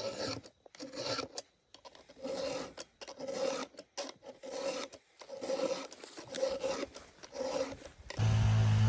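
Rhythmic rasping strokes of a hand tool, about two a second, like a file or saw worked back and forth. About eight seconds in, an engine starts running loudly and its pitch wavers.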